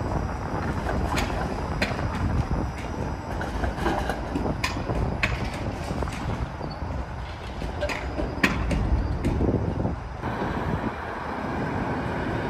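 Toronto Flexity Outlook low-floor streetcars rolling slowly through a street track junction: a steady rumble with sharp irregular clicks and clunks as the wheels cross the rail joints and switches. About ten seconds in the background noise changes to a smoother running hum.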